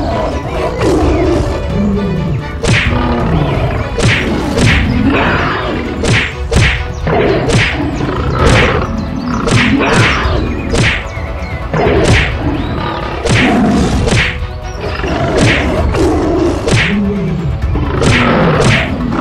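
Cartoon fight sound effects: a steady run of whacks and thuds, about one or two a second, with animal growls over background music.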